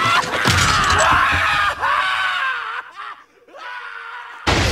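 A skeletal deadite screaming as it is flung through the air, a long wavering cry that fades away about three seconds in. Near the end comes a sudden loud crash.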